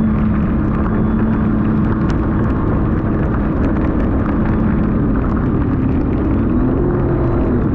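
Sea-Doo RXT-X 300 personal watercraft's supercharged three-cylinder engine running steadily under way, over a rushing noise. Its pitch rises slightly late on.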